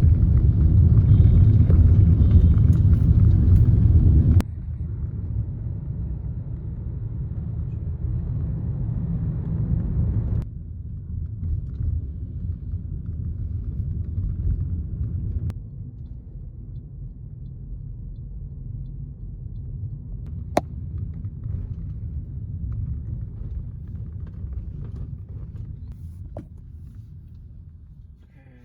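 Low rumble of a car on the road, heard as steady road and engine noise. It drops abruptly in level about four seconds in and again around ten and fifteen seconds in, with a single sharp click a little past the twenty-second mark.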